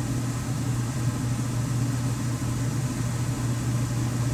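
A steady low mechanical hum that runs unchanged throughout, with no speech.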